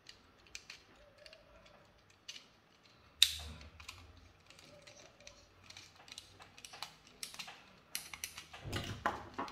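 Small clicks and scrapes of a screwdriver working a terminal screw on a plastic wall switch while red wires are handled, with one sharper click about three seconds in.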